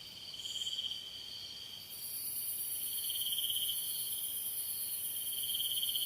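Rainforest insect chorus: a steady high trilling that swells and fades every couple of seconds, with a shriller, very high buzz that cuts in about two seconds in and holds.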